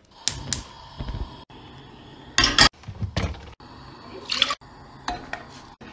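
Kitchen sounds in short clips with abrupt cuts between them: a steel pot on a gas stove knocking and clinking, and milk pouring from a carton into the pot.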